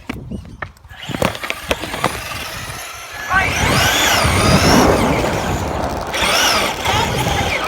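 On-board sound of a Traxxas RC car: knocks and rattles of the chassis for the first few seconds, then the motor and drivetrain whine, rising and falling in pitch twice as the car speeds up and slows, over rough rumbling from the wheels.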